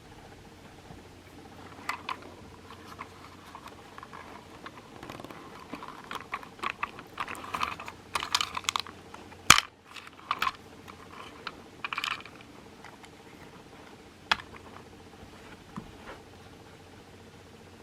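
Small plastic toy parts being handled: irregular clicks, taps and rattles, busiest in the middle, with one sharp snap a little past halfway. A faint steady hum runs underneath.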